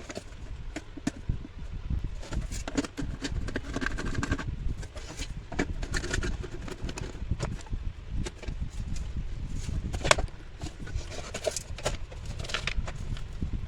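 Irregular clicks, taps and knocks of hands working on parts and tools, over a low rumble, with one sharper knock about ten seconds in.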